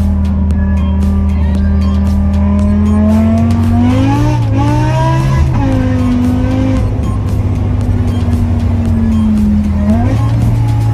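BMW S85 5.0-litre V10 engine running steadily under way, its pitch rising briefly about four seconds in and stepping up again near the end.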